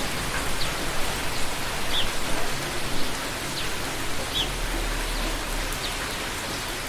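Steady rain falling, recorded outside, with a faint short high chirp repeating about every second.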